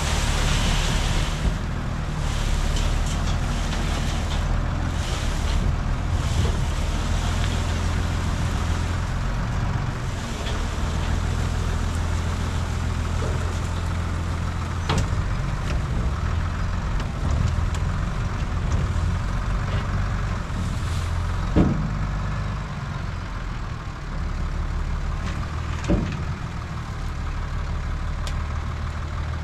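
Tractor diesel engine running steadily, with a few sharp knocks or clunks over it.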